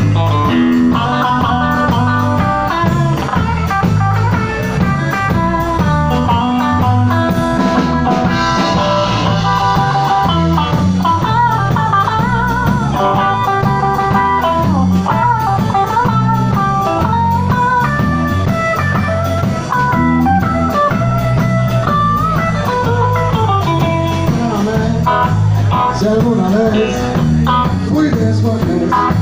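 Live blues-rock band playing an instrumental passage: a Stratocaster-style electric guitar plays a lead line with bent notes over bass and drums.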